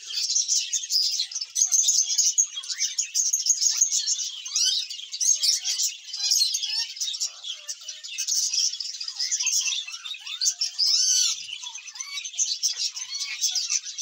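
A large flock of small caged parrots, lovebirds and budgerigars, chirping and chattering all at once: a dense, unbroken wash of high-pitched, overlapping calls full of quick rising and falling notes.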